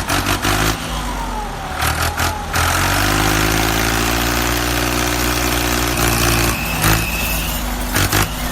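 An engine running steadily with a low hum, broken by scattered clicks and knocks, and a brief high steady tone about six seconds in.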